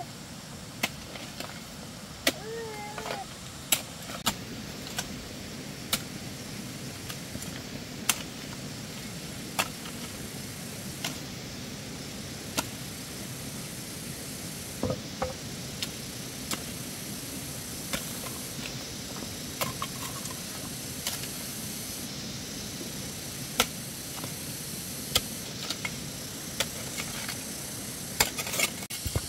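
A hoe chopping into loose, damp soil: irregular sharp strikes about once a second, over a steady background hiss.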